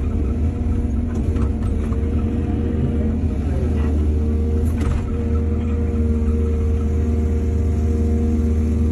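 Excavator's diesel engine running steadily under hydraulic load, its pitch dipping briefly about halfway through, with a few light knocks or clanks from the working machine.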